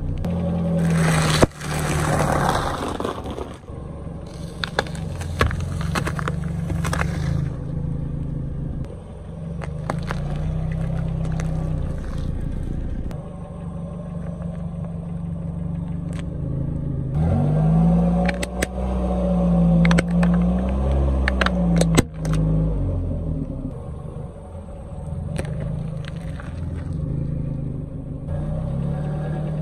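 A car's engine running slowly as its tyre rolls over small objects, with its pitch rising and falling for a few seconds in the middle. Scattered crackles, crunches and sharp snaps come from things being crushed under the tyre, the loudest snaps about a second and a half in and again around twenty-two seconds in.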